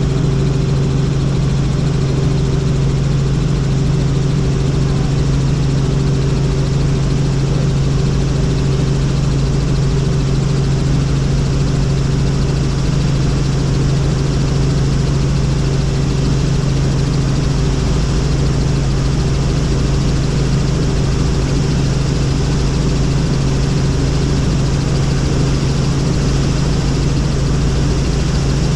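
Helicopter in flight: a steady drone of engine and rotors with a strong low hum that holds one pitch throughout.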